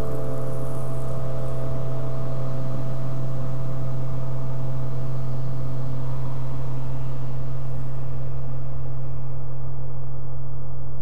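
Loud, steady low drone, a soundtrack drone, holding one deep pitch; the faint hiss above it fades away near the end.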